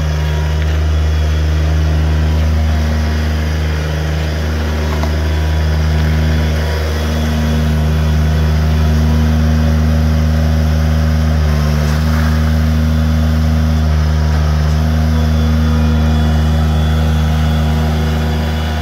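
Bobcat S70 skid-steer loader's small three-cylinder diesel engine running steadily under work, a little louder from about seven seconds in.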